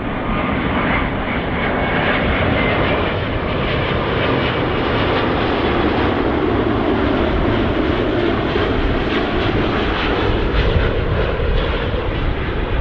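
Airbus A350-900's Rolls-Royce Trent XWB turbofans at approach power as the airliner passes low and close on final approach: a broad, steady jet rumble with a faint fan whine over it in the first few seconds.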